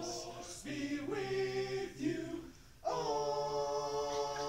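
A small group of men singing a cappella, short sung phrases and then a long held note from about three seconds in.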